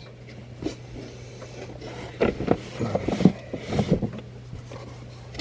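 Scattered clicks, taps and brief rustles of hands handling wiring and plastic parts, over a steady low hum.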